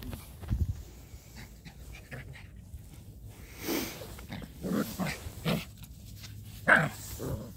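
Seven-week-old Puli puppy making a few short vocal sounds, spaced out over the second half, the loudest a sharp one near the end.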